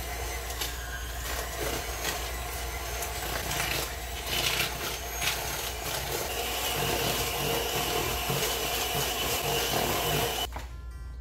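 Electric hand mixer running with its beaters in a bowl, beating eggs into creamed butter and sugar. A steady whine joins the motor noise about halfway through, and the mixer switches off suddenly near the end.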